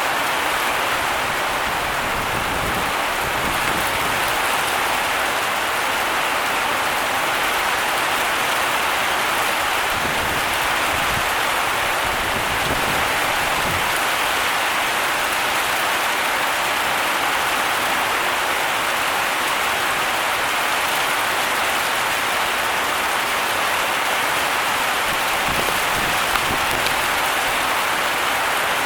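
Heavy tropical rain pouring down steadily, a dense, even hiss of rain on surfaces with no let-up.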